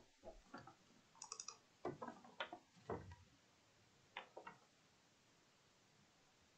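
Faint clicking at a computer: several small clicks and taps in irregular succession, stopping about four and a half seconds in.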